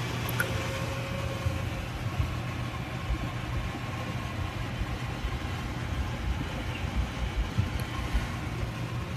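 Ford F-450 bucket truck's engine idling steadily, heard from inside the cab.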